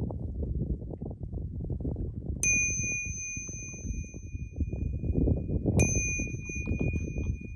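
Small Buddhist bell struck twice, about three seconds apart, each strike ringing on with a clear high tone, marking the start of the chant. Wind buffets the microphone underneath.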